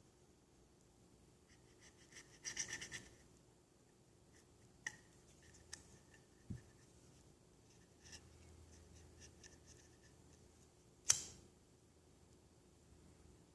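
Small handling sounds of paracord being trimmed and tidied on a plastic knife sheath: a short burst of scratchy clicks, a few separate ticks and a soft thump, then one sharp click near the end, the loudest sound.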